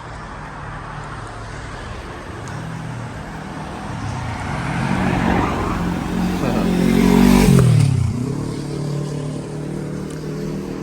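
A motor vehicle passing close by: its engine grows louder to a peak about seven and a half seconds in, then drops sharply in pitch as it goes past.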